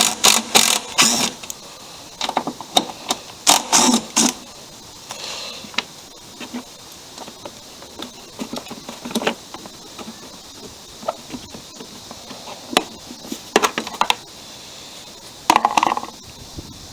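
Socket ratchet clicking in short runs as bolts holding a mower cover are loosened, with scattered clinks and knocks of metal tools and parts.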